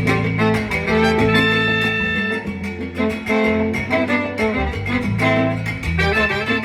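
Live salsa band playing an instrumental passage with an even beat.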